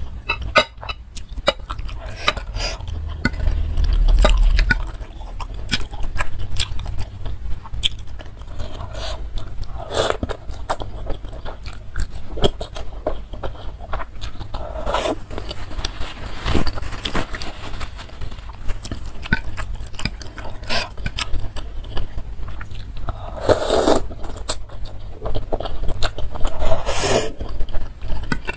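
Close-miked eating of instant noodles in soup: wet slurps of noodles several times, chewing and mouth sounds, and a fork and spoon clicking and scraping against the bowl. There is a dull low bump about four seconds in.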